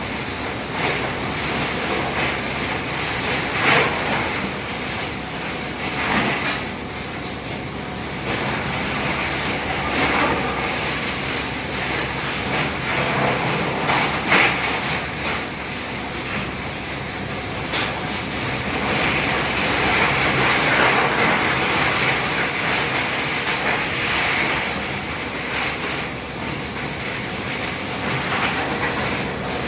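Tub grinder running under load, shredding waste wood and branches: a steady grinding noise with a few sharp cracks as pieces of wood break.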